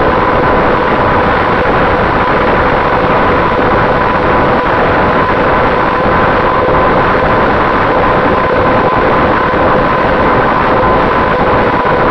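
Finwing Traveler FPV plane's electric motor and propeller running at a steady whine, heard through the onboard camera's microphone along with a constant rush of wind.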